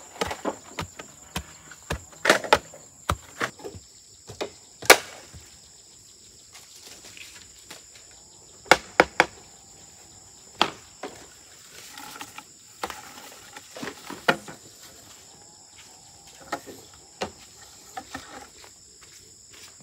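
Irregular sharp knocks and clacks, loudest about two, five and nine seconds in, over a steady high chirring of insects.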